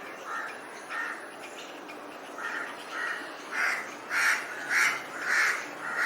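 Crows cawing: two single caws near the start, then a run of about seven harsh caws roughly half a second apart, growing louder toward the end, over a faint steady hiss.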